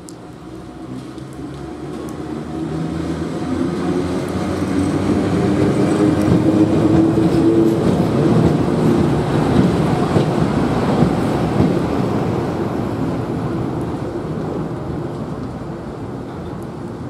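ВЛ10 (VL10) electric locomotive running light past on the adjacent track: its motors and wheels grow louder, peak about halfway through, then fade as it moves away.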